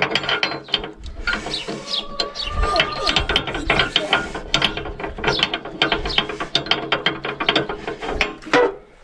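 Ratchet wrench clicking in quick runs of strokes with short pauses between them, as a nut on the rotary tiller's hitch linkage is worked loose. A brief thin squeal comes a little over two seconds in.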